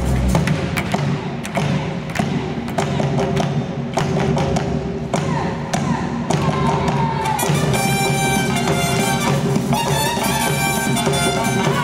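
Live Colombian band music: drums and percussion strike alone for the first several seconds, then trumpet and saxophone come in with a melody about seven seconds in.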